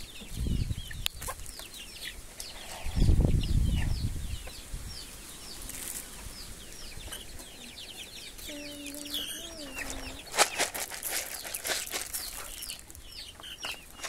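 Chickens in a yard: a steady stream of short, high, falling peeps, a hen's brief drawn-out call about two-thirds of the way through, and a loud low rustle about three seconds in. A few sharp clicks come a little after the hen's call.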